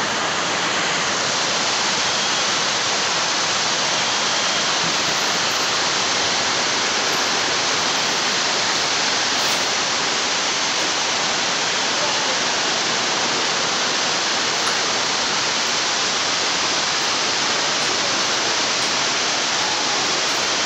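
Rushing floodwater and heavy rain: a loud, steady, unbroken rush of water.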